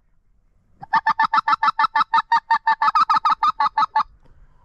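A hunter's hand-blown goose call: a rapid, even run of about twenty short clucking notes, roughly seven a second, that stops about four seconds in.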